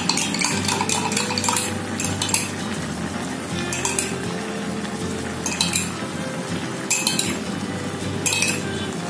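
Metal spatula and ladle scraping and clinking against a wok while stirring simmering capcay soup, in short separate strokes several times over. The stirring works in just-added cornstarch slurry to thicken the broth.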